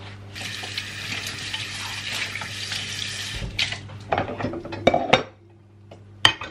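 Kitchen tap water running into a stainless steel sink while a bowl is rinsed, stopping about three and a half seconds in. It is followed by clattering and knocking as dishes are handled and set down on the drainer, with one sharp clack near the end.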